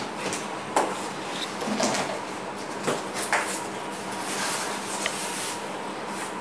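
Cardboard packaging being pulled off a boxed split air-conditioner indoor unit: cardboard scraping and rustling with a few sharp knocks, the loudest about a second in and again around three seconds in.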